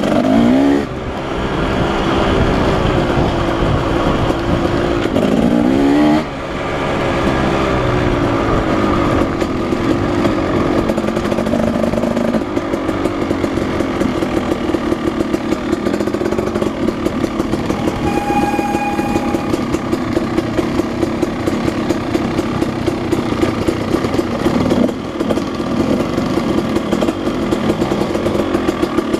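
Husqvarna 300 two-stroke enduro motorcycle running on a trail. The revs climb and drop back twice in the first six seconds, then the engine holds a fast, even pulsing beat.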